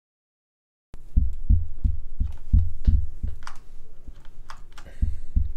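Dead silence for about the first second, then a run of dull thuds with light clicks, about three a second: keys and buttons of a computer keyboard and input devices being pressed in quick succession.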